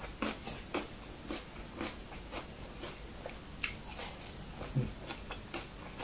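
A person chewing a crunchy mouthful close to the microphone: crisp crunches about twice a second.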